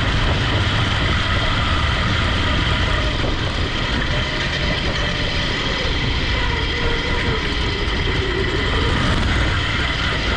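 21-horsepower riding-mower-type engine powering a motorized couch, running steadily under load as the couch is driven, heard from right beside the engine.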